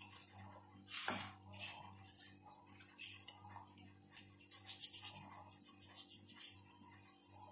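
Light kitchen handling sounds: a sharp knock about a second in, then a run of small irregular clinks and taps as hands work at steel dishes and dust flour onto a stone rolling board.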